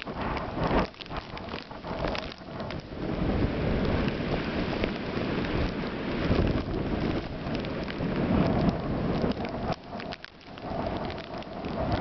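Gusty snowstorm wind buffeting the microphone, rising and falling, with a brief lull about ten seconds in.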